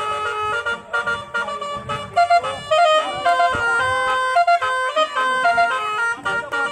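Telolet multi-tone horn playing a fast melody of stepped notes, some short and some held.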